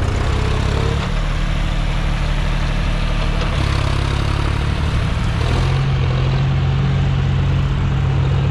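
John Deere tractor's diesel engine working hard as it pulls a loaded trolley through soft ground. The engine note rises and grows louder about five and a half seconds in.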